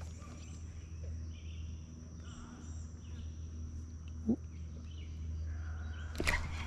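Outdoor insect chorus, a steady high-pitched trill like crickets, with a few short bird calls over a constant low rumble. The trill cuts off about six seconds in, and a sharp click is heard just after it.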